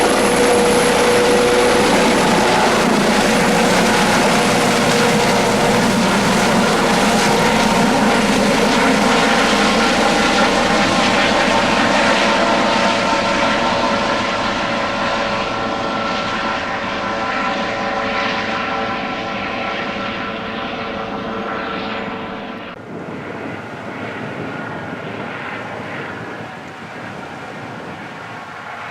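Airbus Helicopters EC155B1 (H155) twin-turbine helicopter running loud with steady rotor and turbine tones. It gradually fades and grows duller over the second half as it moves away, and the low rumble drops off abruptly about 23 seconds in.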